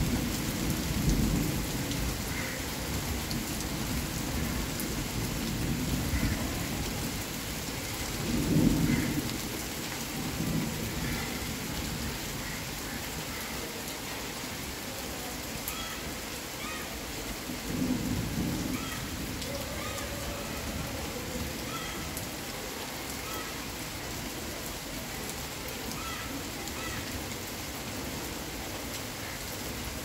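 Heavy rain pouring steadily onto standing water and leaves. A few low rumbles swell up through it, the strongest about nine seconds in and again around eighteen seconds.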